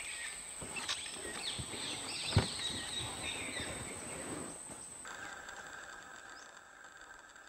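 Forest ambience with scattered bird chirps and light rustling, and one sharp knock about two and a half seconds in. About five seconds in it cuts to a quieter ambience with faint steady high tones.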